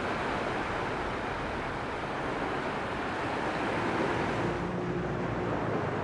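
Gentle surf: small waves washing up and running back over a sandy shore, an even, steady rush of water.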